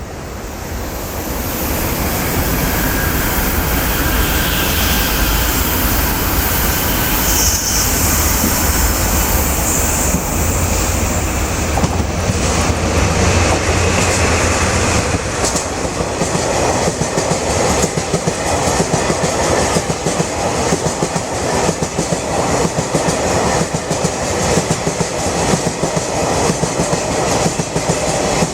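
DD51 diesel-hydraulic locomotive, with twin diesel engines, passing close by with the engines running hard for the first half. A long string of tank wagons follows, clattering over the rail joints in a steady clickety-clack.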